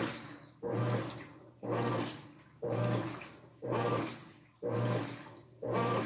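GE belt-drive top-load washing machine agitating: water churning in the tub with a low hum, in even strokes about once a second, each starting sharply and fading away.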